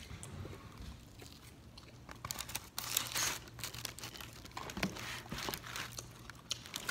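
Paper liner in a breadstick box crinkling as a hand pulls a breadstick loose, loudest about three seconds in, with a second burst about five seconds in.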